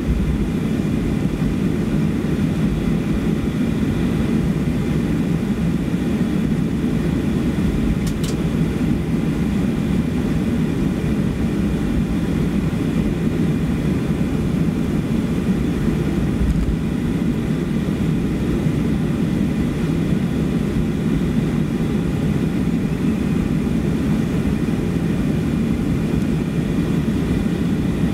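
Cabin noise of a Boeing 737-400 taxiing, heard from a window seat over the wing: its CFM56-3C1 turbofan engines give a steady low rumble with a thin, even whine on top.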